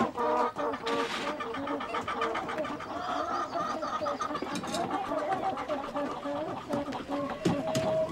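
A crowd of caged hens clucking together, many short calls overlapping without a break.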